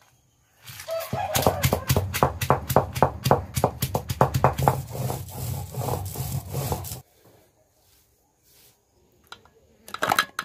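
Stone roller of an ammi grinding stone pushed quickly back and forth over soaked turmeric, grinding it to a fine paste: a steady run of even scraping strokes that starts about a second in and stops abruptly some six seconds later. A few sharp knocks near the end.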